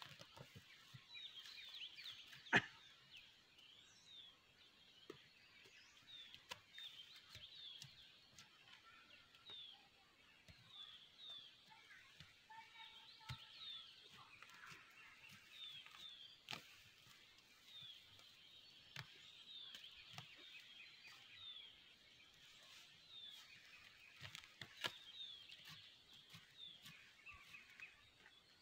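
Faint field ambience: birds chirping over and over with short, high, falling notes, while a knife chops and scrapes into soil with soft irregular clicks. One sharper knock comes about two and a half seconds in.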